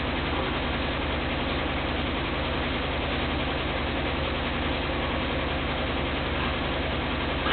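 A steady mechanical hum with an even hiss, unchanging throughout; no puppy yips or barks stand out.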